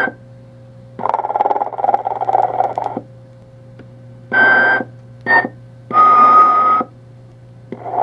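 Animated Telco Motion-ette sleeping Santa figure snoring through its small speaker: a long rasping snore, then three short loud sounds each with one clear tone, and another snore starting near the end, over a steady low hum.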